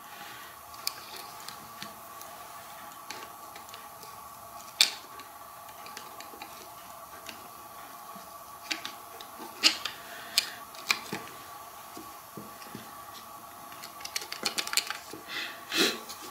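Small clicks and taps of hand work on a plastic HVAC blend-door actuator: push-on wire connectors being pulled off its small DC motor, and a screwdriver and pliers knocking on the plastic housing and the wooden bench. The clicks are scattered, with the sharpest about five seconds in and a quick run of them near the end, over a faint steady hum.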